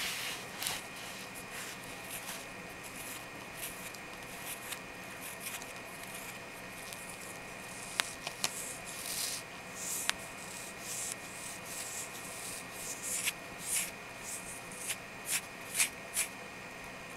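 Long natural fingernails scratching and rubbing over the skin of a forearm in short, irregular strokes, with a couple of sharp clicks about eight and ten seconds in.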